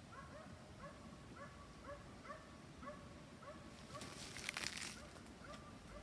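A dog barking in the distance, short yaps repeated about twice a second, pausing briefly before one more near the end. About four seconds in comes a brief rustle.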